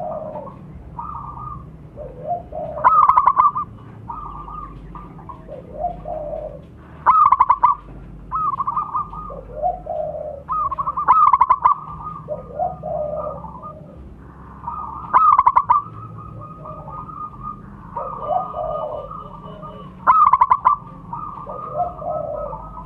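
Zebra dove (perkutut) cooing. A loud, rapid, stuttering cooing phrase repeats about every four seconds, with softer, lower coos in between.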